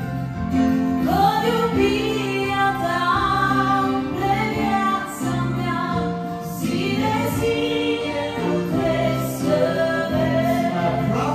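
A woman singing a Romanian Christian worship song over sustained electronic keyboard chords, amplified through a PA system.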